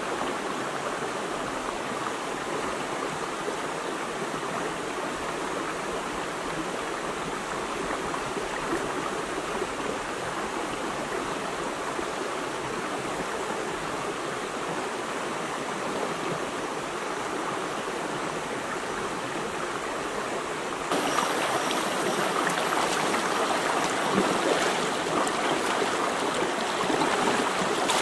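Shallow rocky forest stream flowing steadily over stones, a continuous rushing of water that gets louder about three quarters of the way through.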